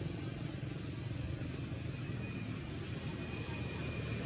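Steady low motor rumble, like an engine running out of sight, over a faint hiss.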